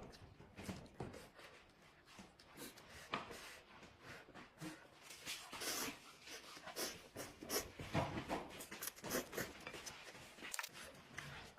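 Close-miked eating of instant noodles: wet, irregular slurps and chewing, with short smacking clicks.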